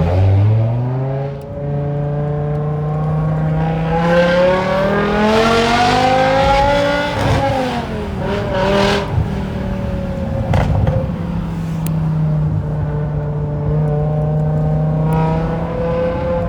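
BMW E60 M5's straight-piped 5.0-litre V10 accelerating hard, its note climbing steadily for several seconds. It then drops sharply as the throttle closes, with a few burbles and gurgles on the overrun, and settles into a steady drone that rises slightly near the end.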